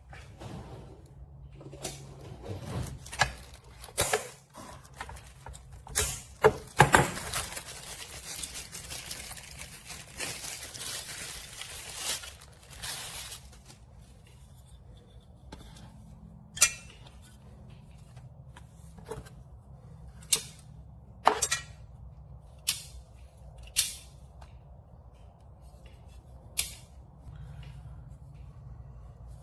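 Packaging and parts of a TV wall mount being unboxed and handled: scattered knocks, a stretch of rustling and tearing of packaging in the middle, then a series of separate sharp clicks and knocks.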